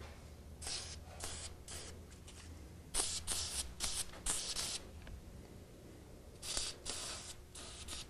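Aerosol spray grease being sprayed onto garage door cable pulleys and an extension spring in a series of short hissing bursts, each under a second.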